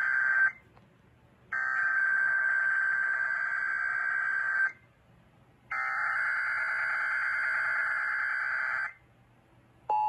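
Emergency Alert System SAME header played over an FM radio's speaker: harsh, buzzy digital data bursts. The tail of one burst is followed by two full bursts of about three seconds each, separated by a second of silence, opening a Required Weekly Test. The steady two-tone EAS attention signal begins right at the end.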